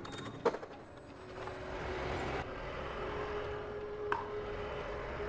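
A sharp click, then a machine starting up and running with a steady hum that rises slightly in pitch, with a brief hiss over its first second; a second click follows about four seconds in.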